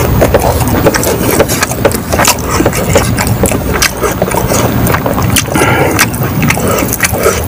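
Close-miked eating sounds: wet chewing and lip smacking with many sharp clicks, and fingers squishing and mixing rice and curried egg on a tray, over a steady low hum.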